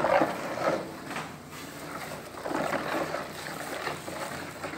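Wooden spoon stirring a liquid soap mixture of used cooking oil, caustic soda solution and powdered detergent in a plastic basin, sloshing with each stroke. The mixture is just beginning to thicken into soap.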